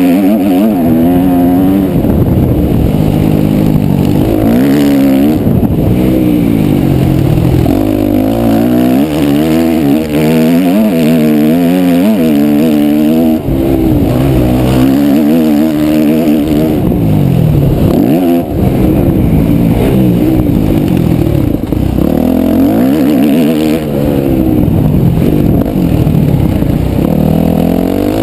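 Yamaha motocross bike's engine revving hard, its pitch climbing and dropping again and again as the throttle opens and shuts and the gears change around the track. It is picked up through a vented GoPro back, so the engine comes through rawer than through a sealed housing.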